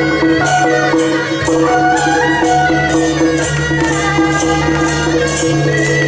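Traditional Taiwanese temple procession music: a melody of held notes stepping up and down over a steady low drone, with percussion strikes about twice a second.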